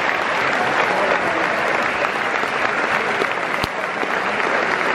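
Football stadium crowd applauding a goal, thousands of hands clapping, with a single sharp crack about three and a half seconds in.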